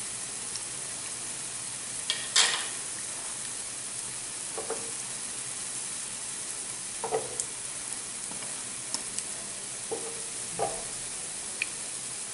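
Oil sizzling steadily around a gram-flour-batter-coated bread pakoda shallow-frying in a pan, with a few scattered sharp pops and crackles, the loudest about two seconds in.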